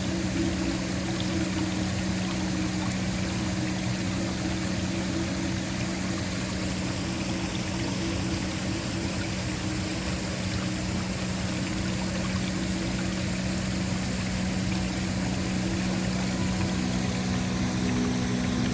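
Waterfall: a steady, even rush of falling water. Under it runs a low sustained ambient drone that moves to a different note near the end.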